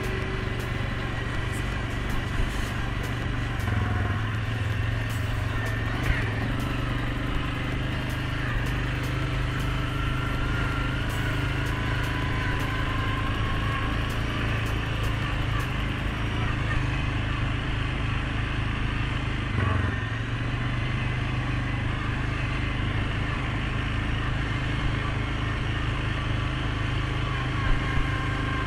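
Suzuki KingQuad 750 ATV engine running steadily while the quad is ridden, with a faint whine that rises and falls.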